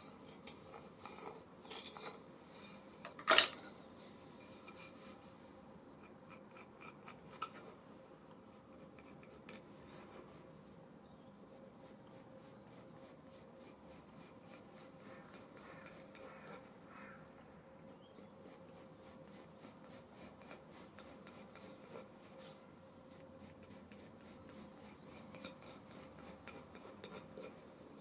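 A pair of compasses scratching arcs onto a split wooden spoon blank, with a single sharp knock about three seconds in. Then a pencil rubs and scratches along the wood in quick, repeated strokes as a spoon outline is drawn.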